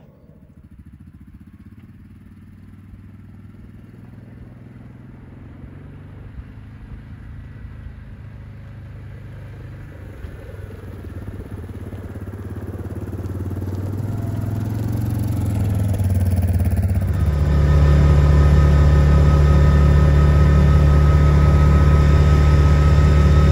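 Yamaha Wolverine R-Spec side-by-side's engine running as the machine sets off, growing steadily louder for about 17 seconds, then running loud and steady.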